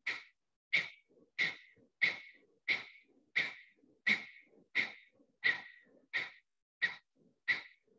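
Kapalabhati breathing: sharp, forceful exhalations through the nose with the abdomen snapped in, each a short puff that fades quickly, repeating steadily about three times every two seconds.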